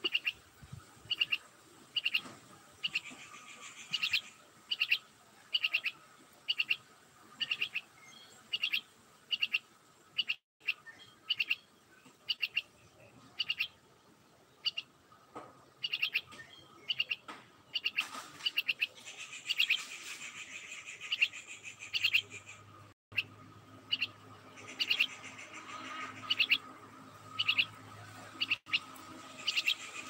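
A caged myna calls over and over in short, sharp notes, about one and a half a second. Twice in the latter half the notes run into stretches of denser, harsher chatter.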